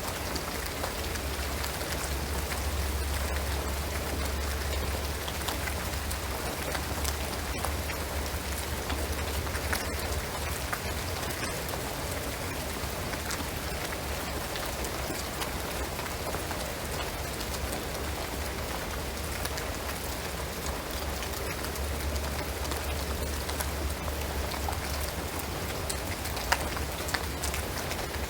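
Steady rain falling on a shingled roof and pine trees, a dense even patter with scattered louder drips, two of them standing out near the end. A low rumble sits underneath, swelling and fading.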